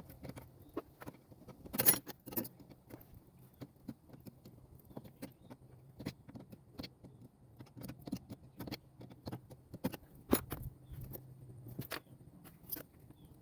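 Small metal objects clicking and clinking irregularly, with the sharpest clinks about two seconds in and again a little after ten seconds, over a faint steady low hum.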